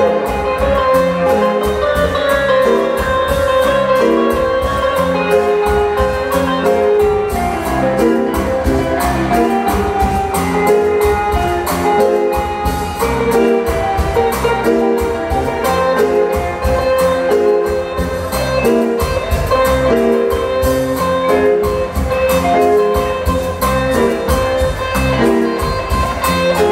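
Tropical dance-band music: an instrumental passage with a steady beat and a bright pitched melody, with no singing.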